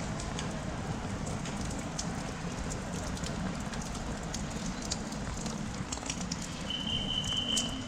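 Steady rainfall with scattered sharp ticks of drops striking nearby surfaces. Near the end a short, high, steady tone sounds for about a second.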